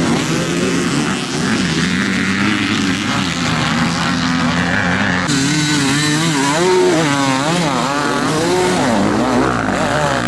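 Motocross bike engines revving hard under full throttle on a steep hill climb, the pitch rising and falling quickly as the riders work the throttle. About halfway through the sound changes abruptly to one close bike whose revs swing up and down repeatedly.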